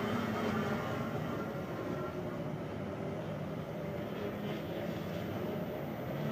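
Steady drone of boat-racing hydroplanes' two-stroke outboard engines, heard at a distance across the water.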